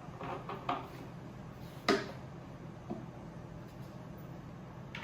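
Parts of a flat-pack bed platform being handled and set in place: a few light knocks and clicks, the sharpest about two seconds in, over a steady low hum.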